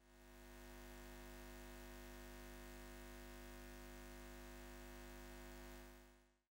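Near silence: a faint steady low hum of several held tones, fading in over the first second and fading out near the end.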